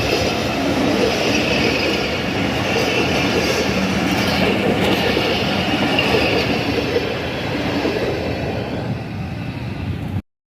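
A passenger train running along the track on departure, a steady rumble of the coaches' wheels on the rails. The sound cuts off suddenly near the end.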